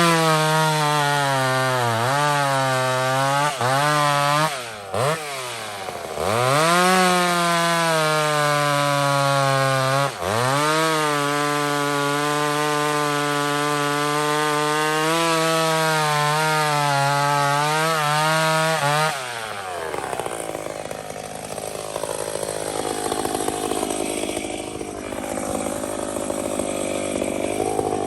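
Two-stroke chainsaw revved up and cutting through a log: the engine note dips several times early on, then holds a steady pitch under load with one brief dip. About two-thirds of the way through it falls away, leaving a quieter, rougher sound.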